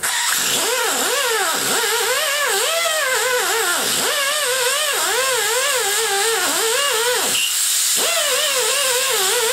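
Pneumatic die grinder spinning a small wire wheel against a fresh nickel spray weld on a cast iron Ford FE 390 cylinder head, brushing the flux off to show whether the weld covered everything. Its whine keeps sagging and recovering as the wheel is pressed into the metal, with deep dips three times, over a steady hiss.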